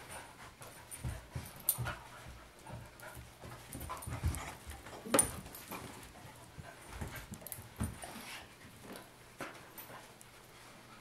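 Two dogs, a large brown one and a small white one, play-fighting over a toy: dog sounds with scuffling and scattered knocks, the loudest a sharp knock about five seconds in.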